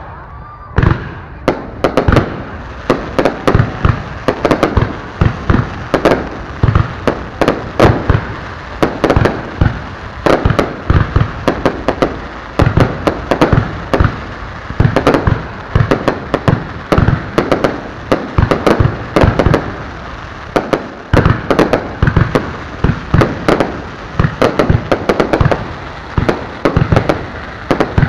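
Fireworks barrage: shells launching and bursting overhead in a rapid, unbroken run of sharp bangs, several a second in quick clusters.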